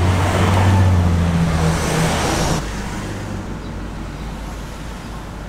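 Vehicle engine hum and road noise heard from inside a moving car, louder for the first two and a half seconds, then dropping suddenly to a quieter, even cabin rumble.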